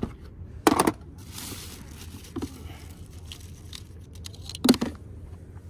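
Handling noises while a mackerel is gutted by hand: a few sharp knocks, the loudest near the end, with rustling and tearing between.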